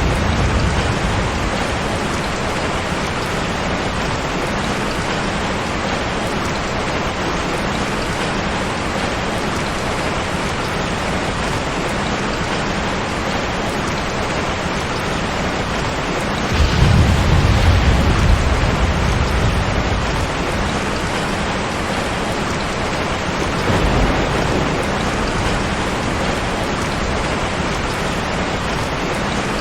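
Steady, even rain noise with rolls of thunder: a loud low rumble about halfway through lasting a couple of seconds, and a shorter, weaker one near the three-quarter mark.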